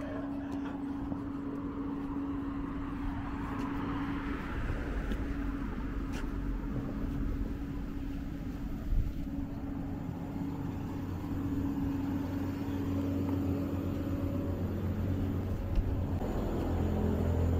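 Motor vehicle engine noise: a steady engine hum, then a heavier engine growing louder near the end.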